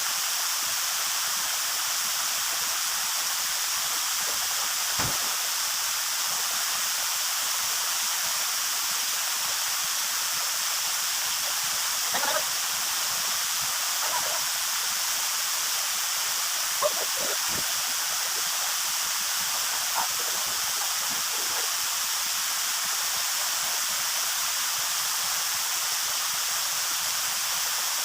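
Waterfall rushing steadily, a constant hiss of falling water, with a few faint short knocks or splashes scattered through.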